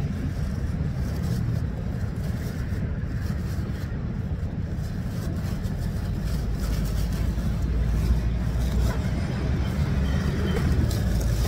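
Steady low rumble of road traffic, with heavy trucks among it.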